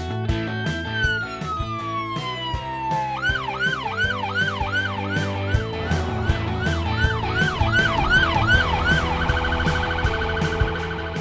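Police car siren over a music track with a steady beat. First comes one long falling wail, then a quick up-and-down yelp about twice a second, then a fast warble near the end.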